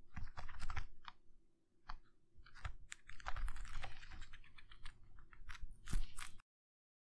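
Guinea pig chewing celery: quick, crisp crunches and clicks, thickest about three to four and a half seconds in. The sound cuts off suddenly with under a second left.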